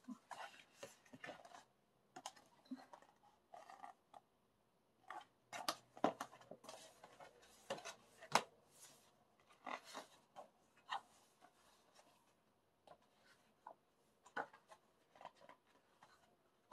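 Glossy pages of a large photo book being turned and handled: irregular paper rustles and flaps, with a few sharper snaps of the stiff pages.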